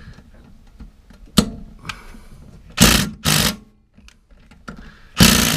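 A socket ratchet clicking in three short bursts as its handle is swung back between pulls on a lawnmower blade bolt that will not come undone, with a sharp click about a second and a half in.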